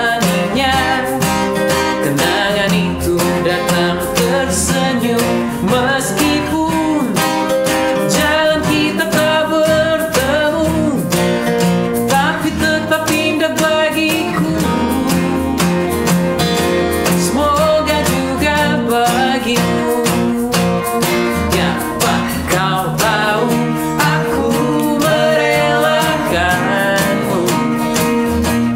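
Acoustic band performance: several steel-string acoustic guitars strummed together under a male lead vocal singing a pop ballad.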